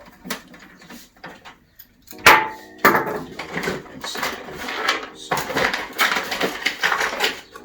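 A PC case panel being handled and fitted: a few light clicks, then two sharp knocks with a short ring, then steady clattering and scraping as the panel is worked into place.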